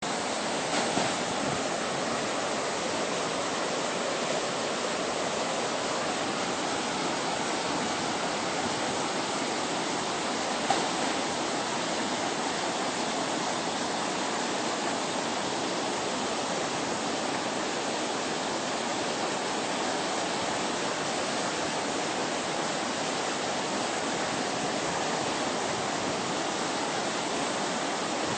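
Steady rushing water, an even unbroken wash of noise with no change in level.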